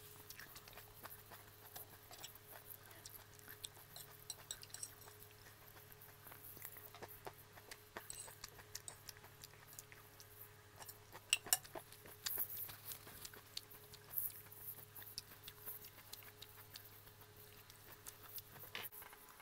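Quiet chewing and mouth sounds from someone eating salad, with a fork clicking and scraping on a ceramic plate, sharpest a little past halfway, over a faint steady hum.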